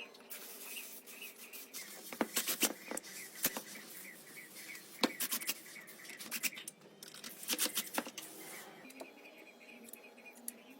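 Repeated hand scraping or scrubbing strokes, about three a second, over a faint steady hum, broken by sharp clicks and knocks of small parts being handled.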